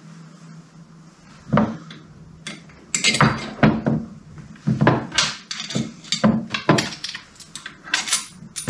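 Steel parts of a Classic Mini front top suspension arm clinking and knocking together as a greased shock absorber pin is fitted by hand. There are a few single clicks in the first couple of seconds, then a quick run of clinks and knocks for about five seconds.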